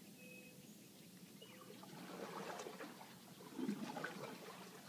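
Faint water splashing and trickling for a couple of seconds in the middle, loudest a little past three seconds in.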